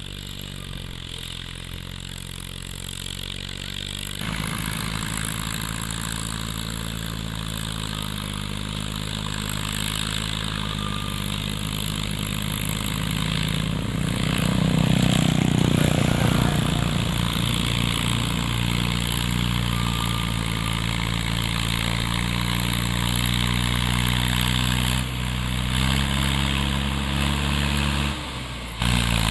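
Vehicle engine running steadily, growing louder to a peak about halfway through and then easing off, with a brief drop near the end.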